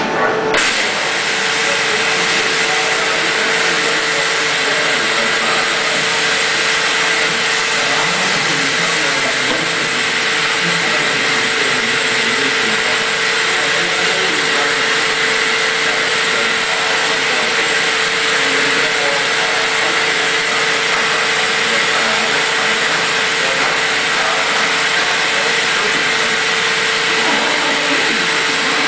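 Vacuum forming machine's vacuum switching on abruptly about half a second in, then a loud, steady rush of air with a constant hum under it as it draws the heated plastic sheet down over the sign mould.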